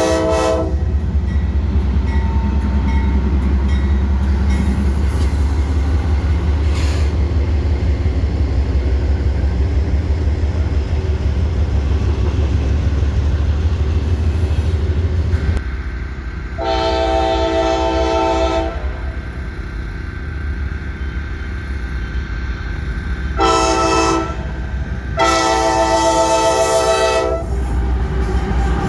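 Diesel locomotive engine rumbling steadily as a train runs, then the locomotive's multi-chime horn sounding three blasts past the halfway point: a long one, a short one and another long one.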